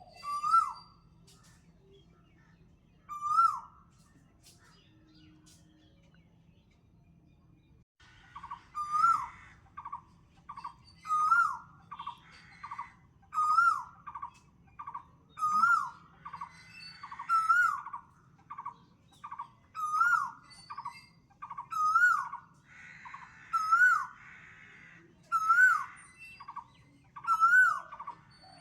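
Birds calling: a short whistled note that rises and falls, twice at first and then about every two seconds. A fast run of lower pulsed notes fills the gaps between, with faint high chirps above.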